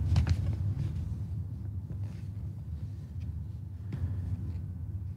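Steady low rumble of room ambience with a few faint, brief clicks.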